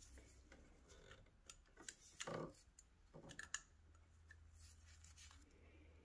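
Near silence with a few faint clicks and rustles from gloved hands handling the ignition coil wiring and plastic connectors on the engine, the loudest about two seconds in and again about three and a half seconds in.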